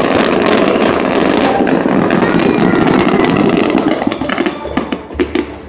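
Fireworks display crackling in a dense, continuous run of reports that thins out after about four seconds into separate sharp bangs.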